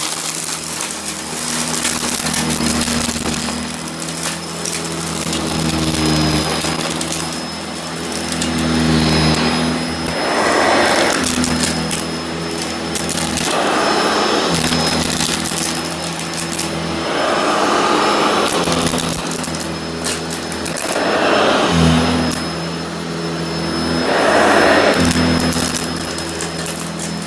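Sanitaire upright vacuum cleaner running on carpet, a steady motor hum with a faint high whine over it. From about a third of the way in, a rushing swell about every three and a half seconds as it is pushed through the scattered lint and beads.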